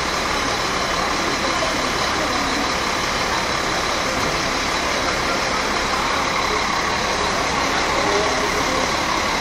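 Steady din of double-decker buses' diesel engines running at idle in a bus terminus, with no distinct events standing out.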